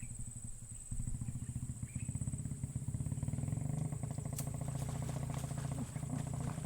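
A small engine running steadily, its low pulsing note picking up about a second in, with a thin steady high-pitched tone above it.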